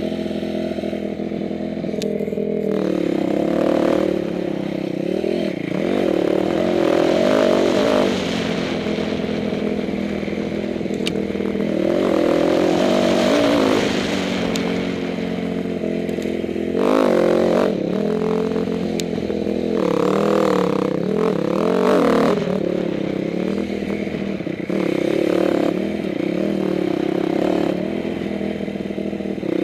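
Off-road motorcycle engine ridden along a rough dirt trail, its pitch rising and falling over and over as the throttle opens and closes, with occasional knocks from the bike over the bumps.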